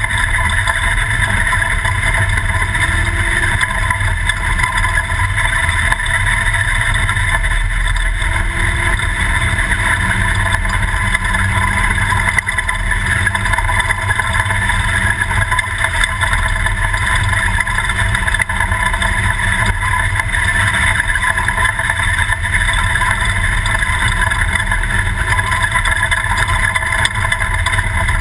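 Toyota prerunner desert race truck driving, its engine and road noise a steady, loud drone.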